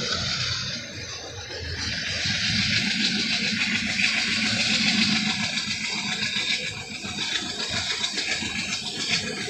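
Running noise of a moving passenger train heard from on board: a steady rush of wheels on rails and wind that swells about two seconds in and eases a little near the end.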